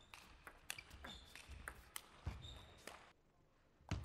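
Table tennis rally: the celluloid ball clicking off bats and table in quick succession, with short high squeaks from players' shoes on the court floor. It goes quiet for a moment near the end, then a single loud knock.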